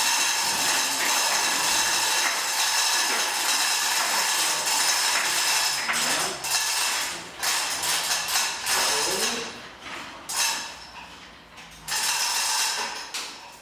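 Manual hoist ratcheting rapidly and steadily as the aluminium main spar is lifted. The ratcheting stops about ten seconds in, leaving quieter scattered clicks and knocks.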